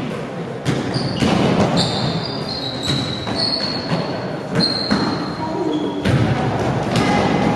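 A basketball bouncing on a hardwood gym floor and sneakers squeaking in short high chirps during play, with voices in the background.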